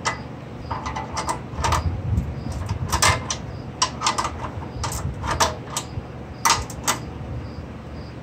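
Metal clinks and clicks of two wrenches on a muffler bolt and lock nut as the nut is tightened, coming irregularly, several in quick succession around the middle.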